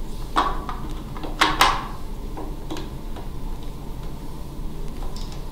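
Handling noise as hands work a GPS cable into the base of a sector antenna: a few scattered knocks and scrapes, the loudest pair about a second and a half in.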